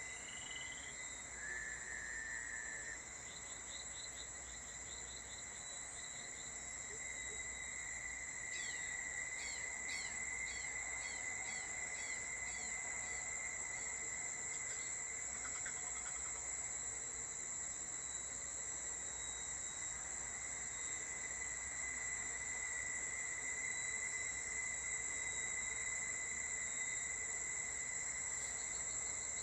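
Insects chirring steadily on two high pitches. About 8 to 14 seconds in, a rapid series of short repeated calls plays over them, and a shorter run comes a few seconds in.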